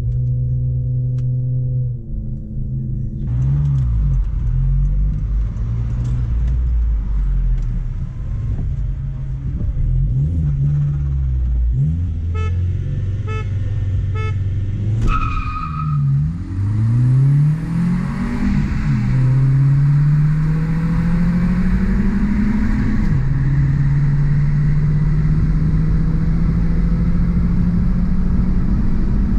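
2002 Passat 1.8T turbocharged four-cylinder engine accelerating hard through the gears. Its pitch climbs, then drops at each upshift, and it holds a long steady climb near the end. A short high tone sounds about halfway through.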